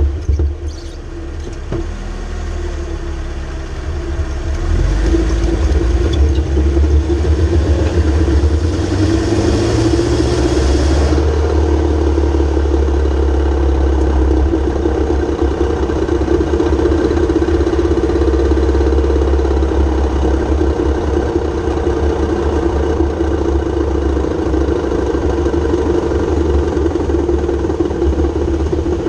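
Mercedes ML350 driving with a steady low drone and hum from the drivetrain, which grows louder over the first several seconds and then holds; the drive shaft's carrier bearing is worn out.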